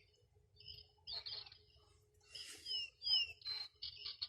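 Small birds chirping: short high chirps, a couple of quick sweeping whistle notes about halfway through, then a fast trill of repeated notes near the end. A faint steady hum lies underneath.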